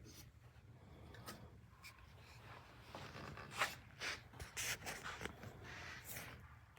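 Faint handling noise: rustling and scraping with scattered small clicks and knocks, busier and louder in the second half. The saw motor is not running.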